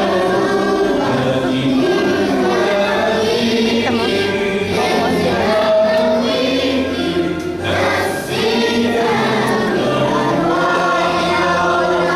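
Choral music: a choir singing held notes over a steady low accompaniment.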